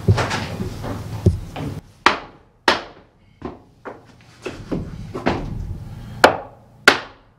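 Hammer knocking on OSB subfloor sheets over wooden loft joists: a string of sharp knocks, roughly one every half second to second, starting about two seconds in after a steady background rumble.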